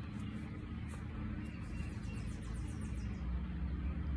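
Soft background music: a steady low layer with a fast, light ticking pattern that plays for about a second near the middle.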